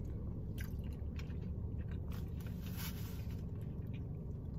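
A person chewing a mouthful of spicy rice cakes close to the microphone, with soft mouth sounds and a few faint clicks, over a steady low rumble.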